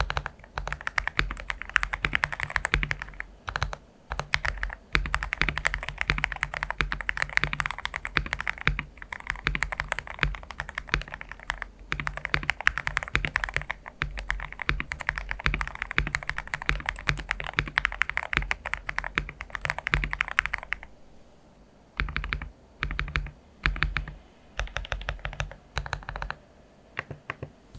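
Mechanical keyboard with lubed Gateron Pro Milky Yellow linear switches, lubed stock stabilizers and a five-layer tape mod, being typed on fast and without a break. About 21 seconds in, the steady typing stops and gives way to a few short, separate bursts of keystrokes.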